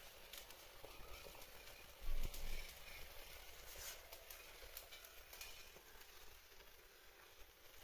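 Beans boiling hard in an aluminium pot on a charcoal stove: faint bubbling and crackling. A brief low thump about two seconds in.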